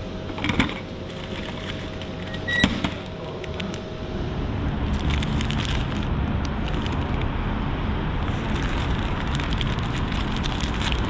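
Two sharp clicks near the start from the vending machine's pickup slot, then the paper burger wrapper crinkling as hands unfold it, over a steady low rumble of outdoor traffic.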